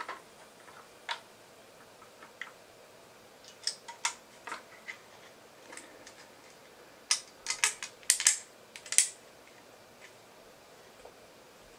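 3D-printed plastic trigger parts of a Nerf crossbow clicking and tapping as they are handled and the main trigger spring is fitted. Scattered single clicks, then a quick run of sharper, louder clicks about seven to nine seconds in.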